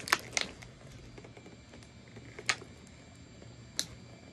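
Clear plastic doll packaging being handled and pulled apart: a few sharp crackles and clicks, two or three close together near the start, another about two and a half seconds in and one near the end.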